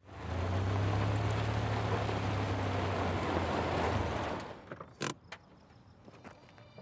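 Car's engine and tyre noise, steady and loud for about four seconds, then dying away as the car stops. A sharp click of the car's door opening comes about five seconds in, followed by a few lighter clicks.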